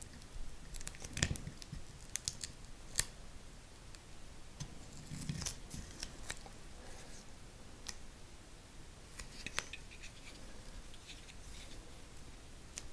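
Faint handling noise from an adhesive rubber grip wrap being worked onto a polymer pistol frame by hand: scattered sharp clicks with light scratching and rubbing between them.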